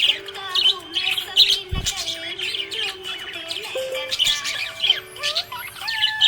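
Parrot chirping and squawking in many short, sharp calls, over background music.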